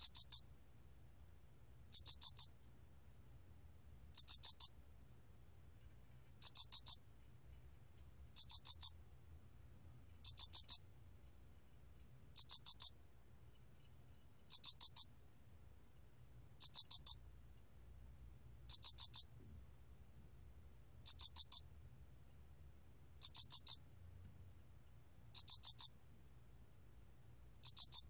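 알락귀뚜라미 cricket (Loxoblemmus arietulus) calling at 24 °C: short, high chirps of four or five quick pulses each, repeated steadily about every two seconds.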